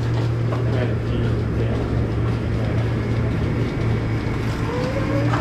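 Milking parlor machinery running with a steady low hum, with a short rising tone near the end.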